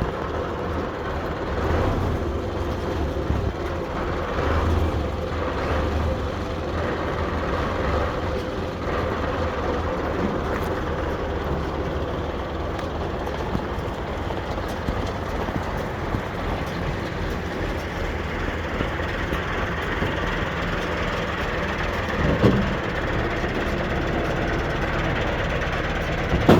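Claas Variant 360 round baler turning over on a tractor's power take-off. The tractor engine and the baler's drive run together as a steady mechanical noise, with one short knock near the end.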